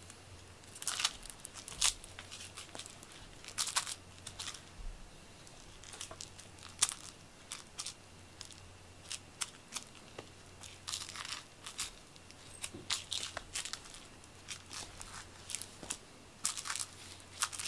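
Rustling and scratching on a fleece blanket as a toy mouse on a string is dragged across it and a cat paws and bats at it: short, irregular scrapes and crackles.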